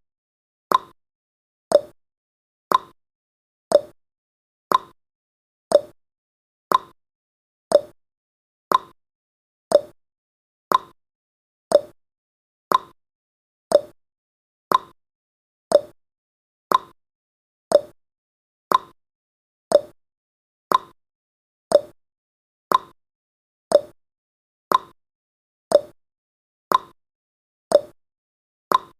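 Ticking-clock sound effect of a countdown timer: one short tick each second, alternating between a higher and a lower tick in a tick-tock pattern, marking off the seconds.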